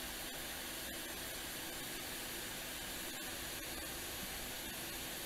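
Steady, even hiss of background noise, with a few faint clicks.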